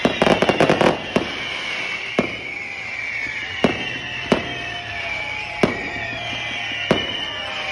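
Fireworks going off: a rapid volley of sharp bangs in the first second, then single bangs about once a second over a continuous high, wavering whistling of rockets climbing.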